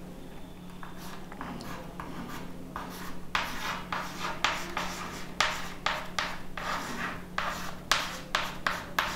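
Chalk writing on a chalkboard: a run of short scratchy strokes as letters are written, faint at first and louder from about three seconds in.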